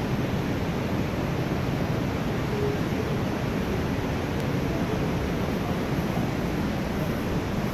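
Steady rush of water from the underground river and waterfall of Devil's Throat Cave, heard through the rock tunnel as an even, unbroken noise.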